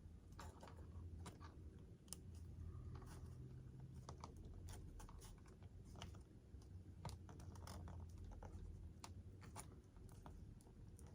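Faint, irregular small clicks and scratches of hands working thin wire leads into a channel cut in a foam model-airplane fuselage, over a low steady hum.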